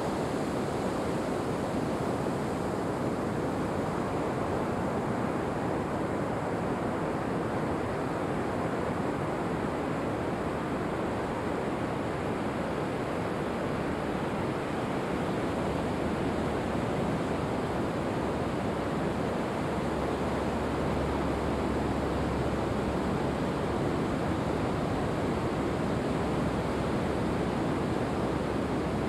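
Ocean surf washing steadily onto a sandy beach, an even, continuous noise without separate wave crashes standing out.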